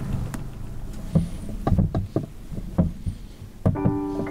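The tail of a .308 rifle shot dying away, then scattered short knocks and clicks from handling gear inside a hunting blind. Steady piano-like music fades in near the end.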